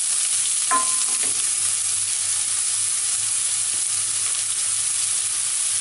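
Chopped onion sizzling steadily in hot oil in a nonstick pan, stirred with a slotted plastic spatula.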